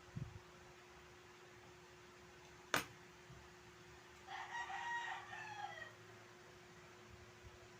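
A single sharp click, then a rooster crowing once for about a second and a half, its call falling away at the end, over a faint steady hum.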